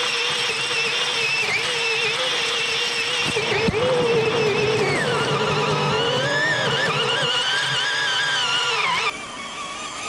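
1:12-scale RC tank's electric drive motors and gearbox whining as it drives over rough ground, heard from a camera mounted on the tank. The whine dips and rises in pitch with speed, and about nine seconds in the sound drops quieter.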